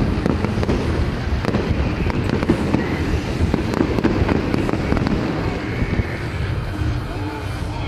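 Fireworks display: a dense, continuous crackle of many small bangs over a steady rumble of detonations.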